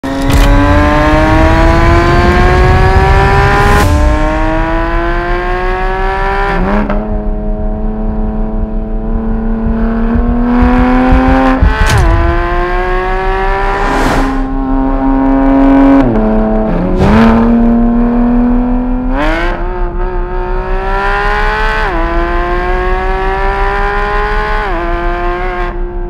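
Porsche 991.1 GT3 RS's naturally aspirated 4.0-litre flat-six under acceleration, its pitch climbing steadily through each gear. The pitch drops or jumps suddenly at the gear changes, about every two to four seconds, and a few changes carry a sharp crack.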